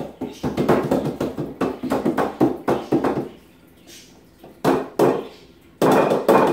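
Hands tapping and slapping an upturned metal flan mold on a plate to loosen the baked flan inside. There is a quick run of taps for about three seconds, then a pause, then a few louder knocks near the end.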